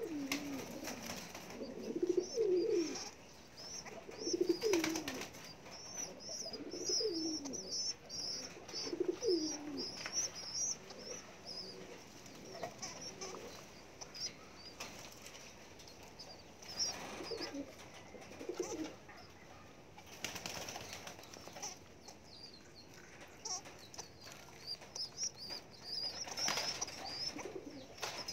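Domestic pigeon squabs begging while an adult pigeon feeds them beak to beak: thin, high squeaking through much of the time, with a few short bouts of wing fluttering. Low, bending calls repeat every second or two, mostly in the first half.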